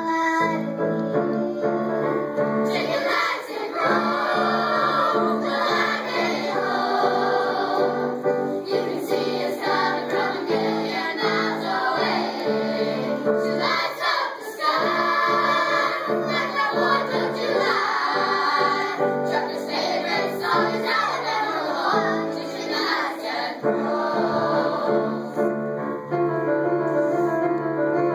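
Two girls singing a song together through a microphone, over a steady instrumental accompaniment.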